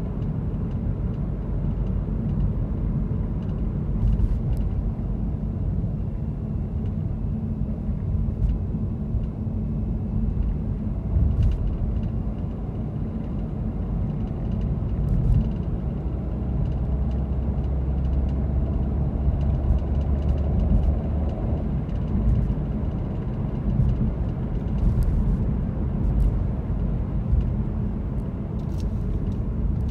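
Steady low rumble of a car's engine and tyres on the road, heard from inside the moving car, with a deeper hum for a few seconds past the middle.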